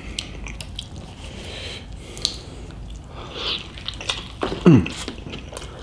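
Close-up chewing and wet mouth sounds of someone eating a cheesy chicken burrito, with soft clicks and smacks. Near the end comes a short vocal sound falling in pitch, an "mm" or "whoa" of appreciation.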